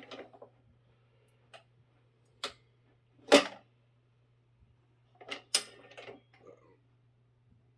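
Metal tire tool clicking and knocking against the rim and the manual tire changer as the second bead of a motorcycle rear tire is levered off the wheel. There are a few separate knocks, the loudest about three seconds in, then a short burst of clatter around five to six seconds, over a steady low hum.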